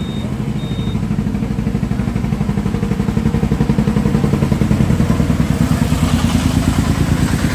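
A small engine running steadily close by with an even pulsing rumble, growing louder over the first three seconds. Two short high beeps come right at the start.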